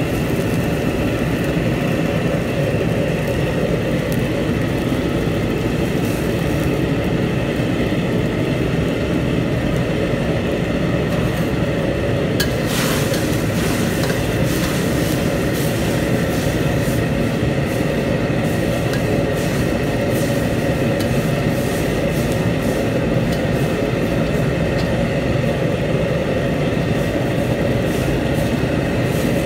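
Steady, loud roar of a commercial gas wok burner and kitchen extraction, with water boiling in the wok. One short knock about twelve seconds in.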